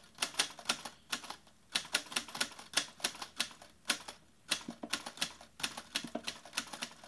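Typewriter typing: quick, irregular runs of sharp key strikes, several a second, with brief pauses between the runs.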